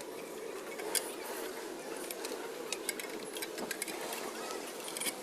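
Irregular light metallic clicks and ticks of hand tools working on engine parts, over a steady low hum.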